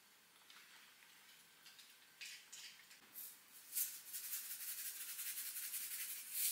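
Salt grinder being twisted over food, a rapid run of fine gritty clicks as the salt is ground out, after a few short scratchy bursts.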